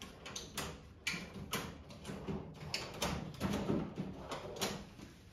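Hand tools and small metal engine parts clicking and knocking as they are handled: a run of irregular sharp clicks, busiest in the second half.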